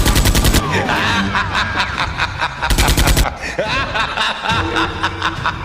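Two short bursts of rapid machine-gun-style fire, each about half a second long and about three seconds apart, over background music.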